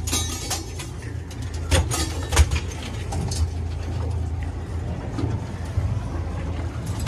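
Boat's outboard motor running steadily at trolling speed, a low hum, with a few sharp knocks of gear against the aluminium hull about two and three seconds in.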